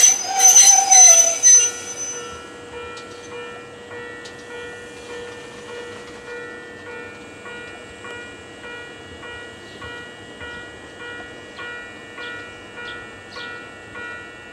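Ohmi Railway 100 series electric train squealing loudly as it brakes to a stop, the squeal dying away about two seconds in. It then stands with a steady electrical hum, joined by a faint ringing that repeats about twice a second.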